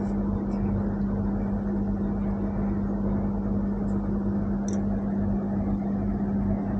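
A steady hum with one constant low tone, even and unchanging throughout.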